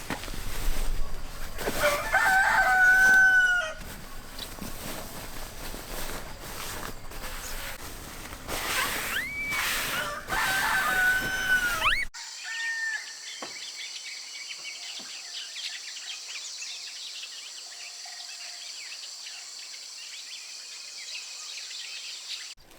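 Rooster crowing twice, two long drawn-out crows about seven seconds apart over farmyard background noise. About halfway through, the sound cuts suddenly to a quieter background with a steady high hiss.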